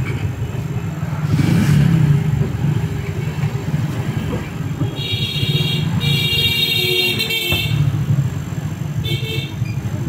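Fridge compressor running under test with a steady low hum. Short high-pitched tooting tones sound around five seconds in, again for longer from about six to seven and a half seconds, and briefly near the end.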